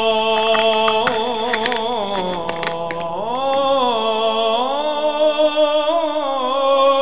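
A recorded adhan, the Islamic call to prayer: one voice holding long, ornamented notes that waver, dip low about two and a half seconds in and rise again. A few light clicks sound under it in the first few seconds.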